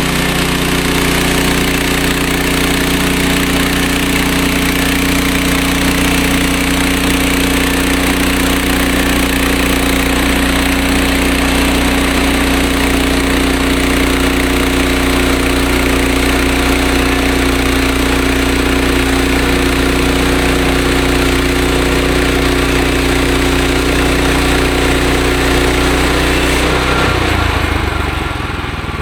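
Bandsaw sawmill's engine running steadily at high speed. About two seconds before the end it drops to a lower speed.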